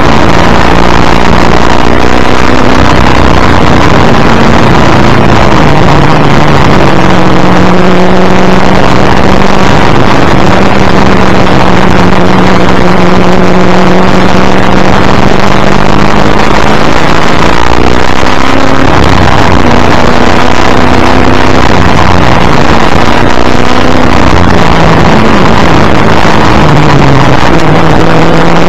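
The racing Ford Falcon's V8 running hard under a loud rush of wind on the bumper-mounted microphone, recorded at its limit. The engine's pitch holds steady for stretches of several seconds, then steps and glides up and down.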